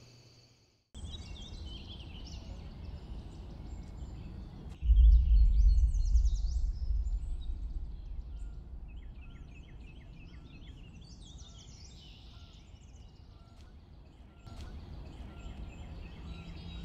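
Quiet ambience with birds chirping, many short high calls. About five seconds in a deep low rumble comes in suddenly and fades away over several seconds.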